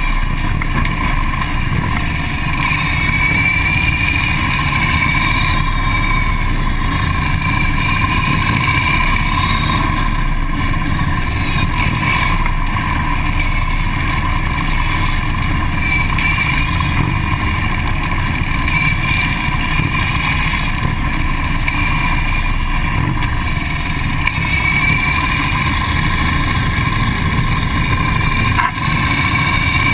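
Harley-Davidson police motorcycles' V-twin engines running steadily, heard from on board one of the bikes.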